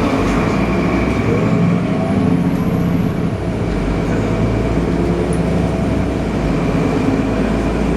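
Solaris Urbino 18 articulated city bus running with a steady engine drone, and a faint rising whine about two seconds in.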